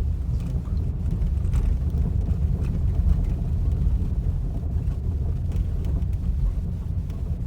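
Road and tyre rumble inside the cabin of a 2019 Skoda Octavia A7 on the move, with faint irregular knocks from the front left brake caliper over the road surface. The caliper knock is one the dealer calls normal on many of these cars, but the owner takes it for a defect.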